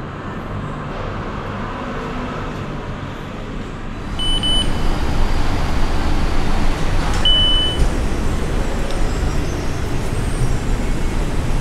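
Vending machine card reader beeping: a short double beep about four seconds in, then one longer beep a few seconds later as a contactless card is presented, over a steady background rumble.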